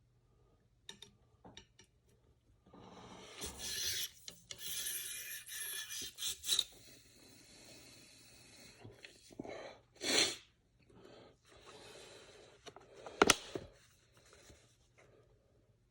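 Cleaning rod working inside a muzzleloader's barrel, making a rasping rub in uneven strokes, with a few light clicks early on and a sharp knock about two-thirds of the way through.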